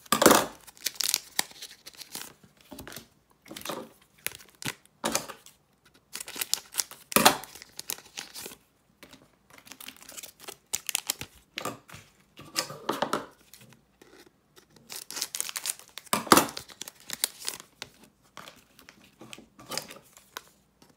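Plastic wrappers of trading-card packs being torn open and crinkled, in irregular bursts with short pauses between them as one pack after another is opened.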